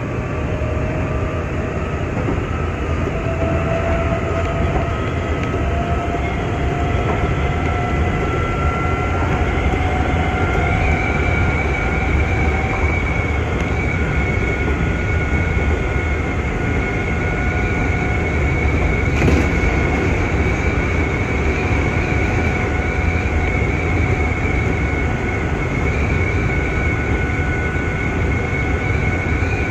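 Nankai 6000-series electric train running on the line, heard from inside the car: steady running noise with a whine that rises in pitch as the train picks up speed over about the first ten seconds, then holds steady.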